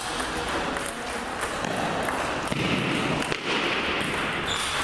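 Table tennis rally: the ball clicks off the rackets and the table several times.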